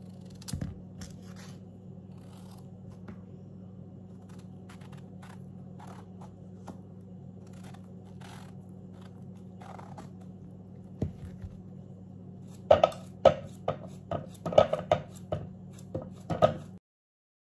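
Kitchen knife cutting through a raw courgette, with faint crisp cuts every so often over a steady low hum. Near the end comes a quick run of sharp knocks as cut chunks drop into a plastic food-processor bowl.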